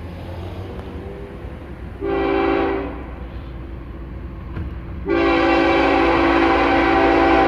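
Approaching diesel freight locomotive's air horn sounding a short blast about two seconds in, then a long blast near the end, a chord of several notes over the low rumble of the oncoming train.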